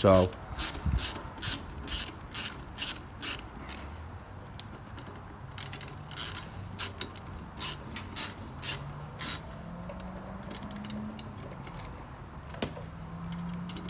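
Quarter-inch ratchet clicking in repeated strokes, about two to three clicks a second in two runs with a short pause between, as the rear brake caliper pad pins are backed out.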